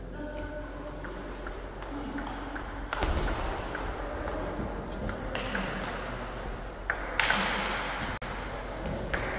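Table tennis rally: the ball clicking off the bats and the table in quick back-and-forth exchanges, with the hardest, loudest hit about seven seconds in.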